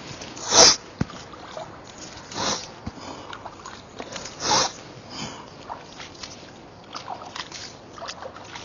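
A man sniffing water up into his nose and clearing it during wudu ablution (istinshaq): three loud, short nasal sniffs about two seconds apart, with fainter sounds between them.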